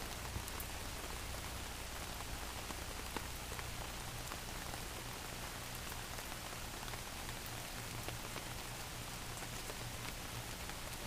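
Steady rain falling: an even hiss with scattered faint ticks of drops.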